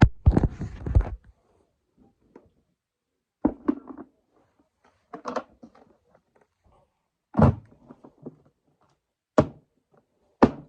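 Knocks and thunks from handling a Henry vacuum cleaner's body and parts. There is a rough, noisy burst in the first second, then about five separate sharp knocks, one to two seconds apart.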